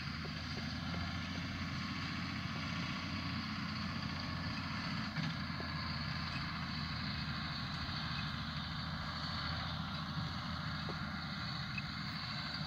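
John Deere loader tractor's diesel engine running at a steady hum as the tractor drives across the field.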